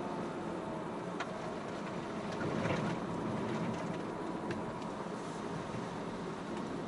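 Steady running noise of a moving road vehicle heard from on board, with a few faint clicks and rattles.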